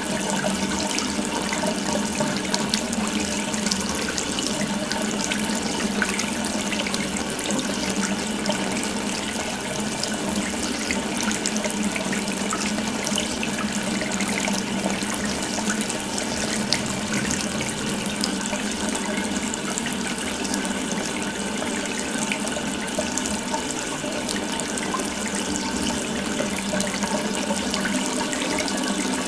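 Water running steadily from an open tap, a continuous even splashing hiss.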